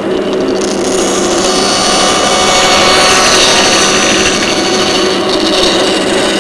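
A Ridgid power tool running steadily and working on wood, with a loud, hissing rub. It grows a little louder toward the middle and eases off near the end.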